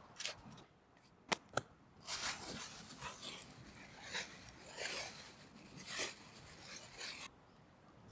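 Aluminium foil being crinkled and folded around food: a few sharp clicks, then a run of crackling rustles in handfuls about once a second that stop suddenly near the end.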